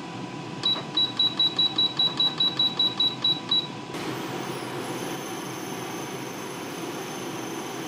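Induction cooktop's control panel beeping, a quick run of short high beeps about five a second for some three seconds, as its temperature setting is stepped up to 400°F. About four seconds in, the cooktop starts heating and a steady whir with a faint high whine begins.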